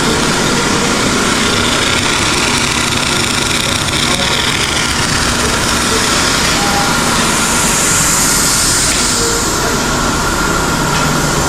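Steady, loud running noise of shop machinery with a high hiss that swells for a couple of seconds past the middle.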